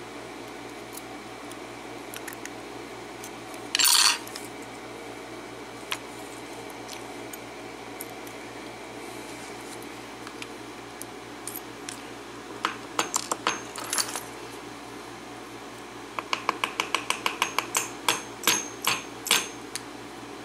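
Light metal clicks and rattles from the pins and springs of a Defiant 5-pin lock being dumped out of its cylinder: a short rattle about four seconds in, then scattered clicks. Near the end comes a quick, even run of light taps, then a few louder metallic ticks with a faint ring.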